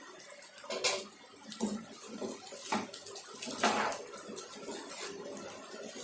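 Spoon stirring and scraping masala pasta in a cooking pan, in irregular strokes about once a second.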